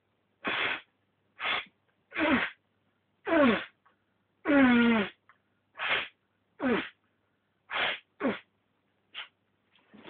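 A man sneezing again and again in a rapid run, about ten sneezes a second or less apart. Several carry a voiced 'achoo' that falls in pitch; the longest, near the middle, lasts about half a second, and the last one is faint.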